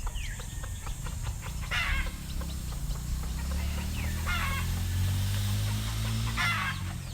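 Backyard chickens clucking in three short bursts of quick notes, over a low hum that swells in the middle and fades near the end.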